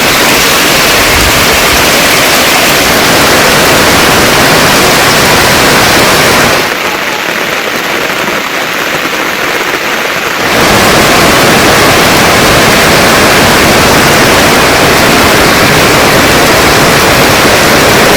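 Heavy monsoon rain pouring down, a loud dense hiss. For about four seconds in the middle it turns quieter and thinner, then comes back at full strength.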